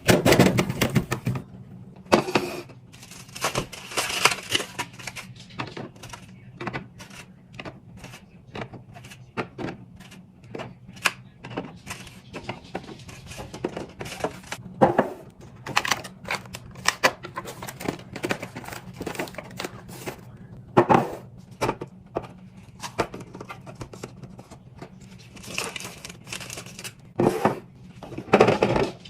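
Items being put away in a refrigerator: plastic containers and bottles clacking and knocking, with packaging crinkling, over a faint steady low hum.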